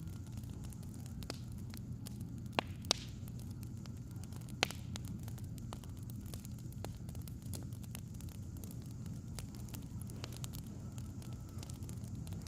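Wood fire crackling: scattered sharp pops over a steady low rumble, with a few louder pops between about two and five seconds in.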